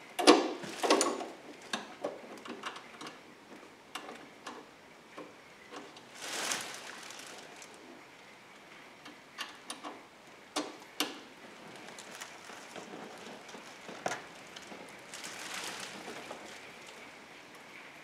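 Scattered light metal clicks and taps from hands and a small tool working a fastener on the lock cylinder's metal bracket, loudest in the first second, with brief rustling scrapes about six seconds in and again near the end.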